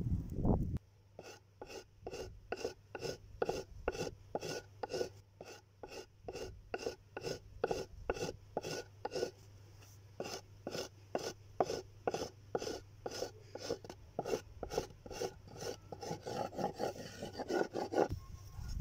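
Hand tool scraping or rasping over a surface in steady, even strokes, about two a second, starting about a second in.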